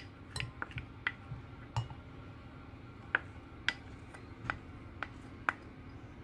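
A spatula tapping and scraping against a small glass bowl while ground turmeric is emptied out of it: about a dozen light, irregular clicks.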